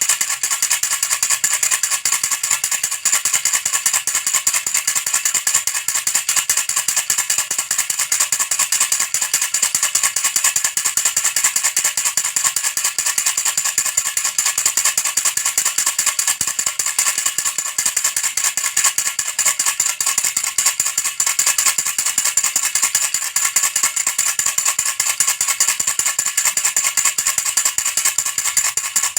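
A baby rattle shaken without a pause, making a fast, steady, mostly high-pitched rattling.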